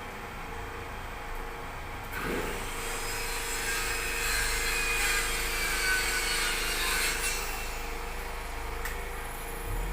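A tool cutting into wood for a lock fitting: a continuous rasping noise starts about two seconds in and fades out about six seconds later.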